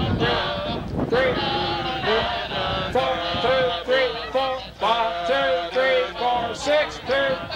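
Marching band members singing their instrumental parts together in place of playing them, as a rehearsal exercise: a group of mostly male voices on short, detached notes in a steady rhythm.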